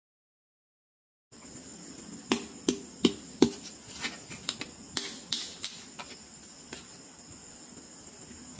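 Hard plastic toy pieces clicking and clacking as they are handled, a dozen or so sharp clicks over a few seconds after about a second of silence, over a steady high-pitched background chirr.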